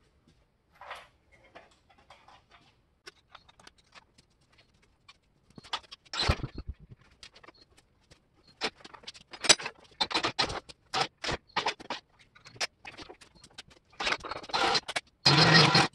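Metal clanks, clicks and scraping rattles from a homemade chain boom hoist being worked to lift an engine. Sparse at first, getting busier from about six seconds in, with the loudest, longest stretch of rattling near the end.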